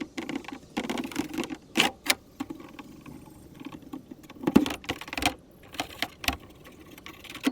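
Irregular rubbing and scraping with sharp clicks and knocks: hand polishing and handling of a bare metal two-stroke exhaust chamber.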